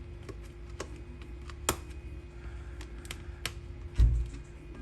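Sharp, irregular clicks and snips of cutters and small tools working inside an opened plastic laptop battery pack, trimming the old tabs flat. One louder click near two seconds in and a heavy low thump about four seconds in, over a faint steady hum.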